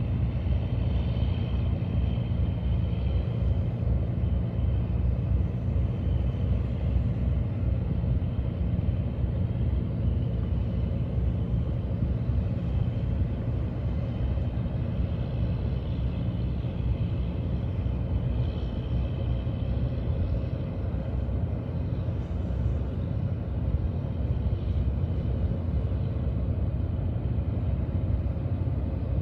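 Squid-fishing boats' engines running at speed, a steady low rumble with a faint hum over it.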